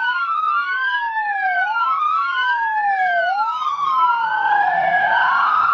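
Electronic police siren wailing: two tones sweep slowly up and down past each other, each rise or fall taking about a second and a half. It cuts off abruptly near the end.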